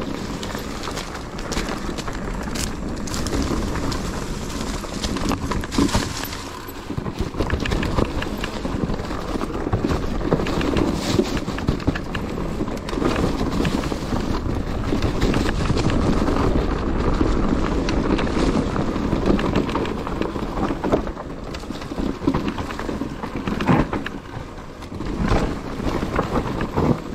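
Mountain bike running over a rough, stony trail: a steady clatter of tyres on rocks and gravel, with irregular knocks and rattles from the bike.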